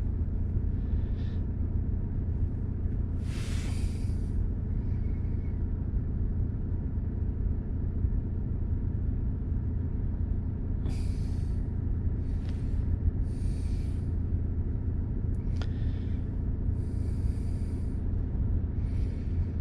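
Car engine idling with a steady low hum. Several short breathy hisses sit on top of it, one a few seconds in and a cluster past halfway.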